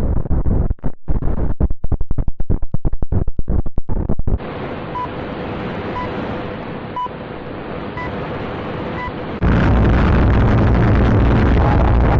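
Series of rumbling, hissing space-noise clips presented as the sounds of the planets. First a rumble that cuts in and out rapidly, then about five seconds of steadier hiss with short beeps about once a second, then, about nine seconds in, a louder, denser rumble.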